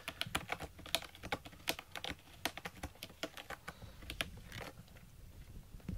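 A cat's claws picking and scratching at a carpeted cat scratcher: a run of irregular sharp clicks and scrapes that thins out about four and a half seconds in.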